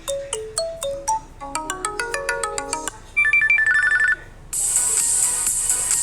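Samsung Galaxy tablet ringtone and notification tones played back to back. First comes a chiming melody of short notes, then a quick run of higher beeps; after a brief gap about four and a half seconds in, a louder, busier electronic ringtone begins.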